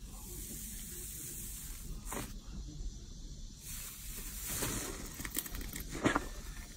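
Slime being handled and pressed: a steady hiss, then a string of crackling, squishing strokes, the loudest about six seconds in.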